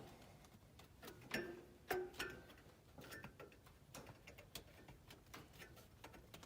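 Faint scattered metallic clicks and taps from handling sheet-metal furnace blower parts, with two louder ringing clinks about a second and a half and two seconds in.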